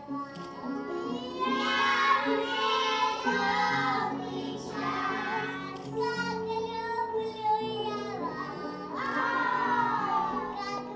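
A song playing with music and a child's singing voice, the melody sung in phrases over held instrumental notes.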